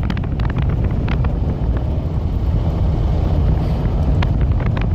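A vehicle driving along a road: a steady, low rumble of engine and road noise.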